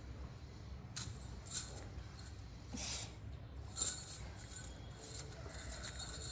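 Bangles (chura) clinking and jingling against each other as they are worked onto a wrist: a few sharp clinks, then lighter jingling near the end.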